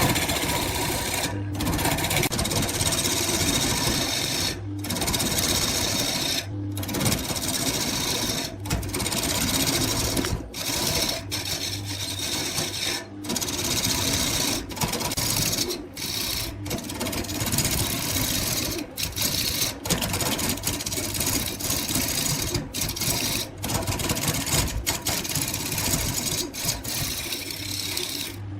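Wood lathe running with tools cutting and scraping the spinning wood: a steady machine whir and cutting noise, broken by many short gaps where one clip cuts to the next.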